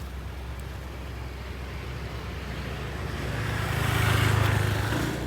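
A road vehicle passing by: engine and tyre noise swell to a peak about four seconds in, then fade.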